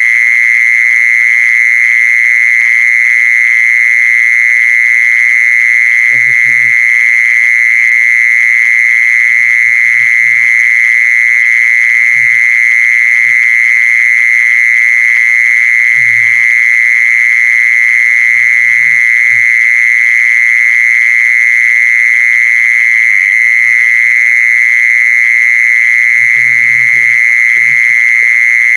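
Loud, unbroken trilling call of a Thai 'maeng jee sorn' insect, held at one steady high pitch without pause. Under it, a faint low hum and a few soft knocks or rustles about six times.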